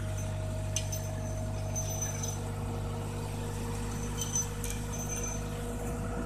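Steel washers clinking against the anchor bolts and base plate of a steel pole as they are fitted, several short sharp metallic clinks, over a steady low engine hum.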